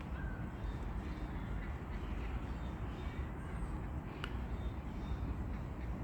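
A bird calling outdoors over a steady low rumble, with one sharp click about four seconds in.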